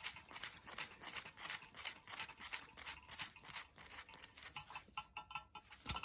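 Hand tool working on metal at a lawnmower bottom blade carrier: a quick rhythmic rasping, about four or five strokes a second. About five seconds in it changes to a few sharp, faintly ringing clicks, followed by a single low knock.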